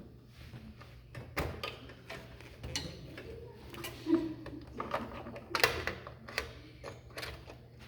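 Irregular clicks, taps and light rattles of computer hardware being handled and fitted, such as a drive cable and its connector being worked into place. The loudest cluster of clicks comes a little past the middle, over a faint steady low hum.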